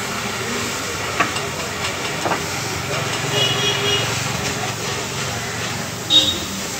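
Gas welding torch hissing steadily as its flame works along the seam of a galvanized steel bucket band. A couple of sharp clicks and a brief high whistle sound in the first two-thirds, and there is a short loud knock near the end.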